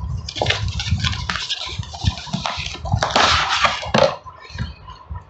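Packaging being handled: rustling and crinkling with small knocks, loudest about three seconds in.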